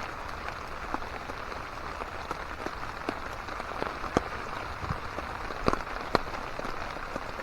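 Steady rain falling on a camp tarp, with scattered sharper drips, a few louder ones landing in the second half.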